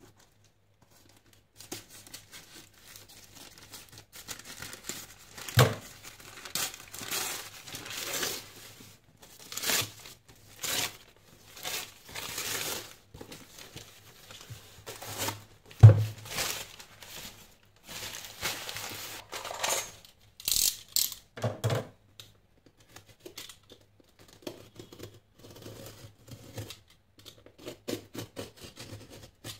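Newspaper gift wrapping being snipped with scissors, then torn and crumpled off a cardboard box, with three sharp thumps as the box is handled, the loudest about halfway through. Near the end, quieter scratching as a utility knife slits the packing tape on the box.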